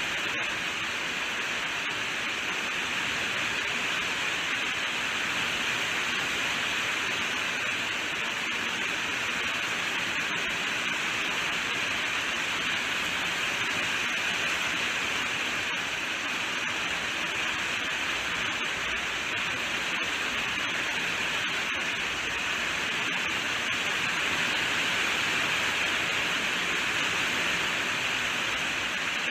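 Steady heavy rainfall, an even hiss with no breaks or distinct drops standing out.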